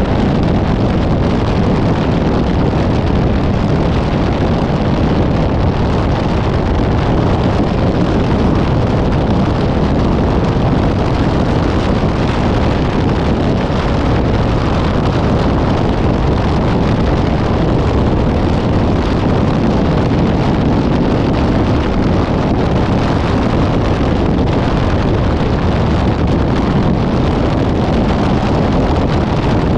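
Steady wind buffeting the microphone over the road noise of a moving vehicle.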